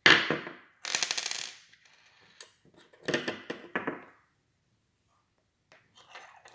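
Small metal pieces clattering and ringing on a hard surface in three bursts. The first, right at the start, is the loudest; the others come about a second in and around three seconds in, followed by a few faint ticks.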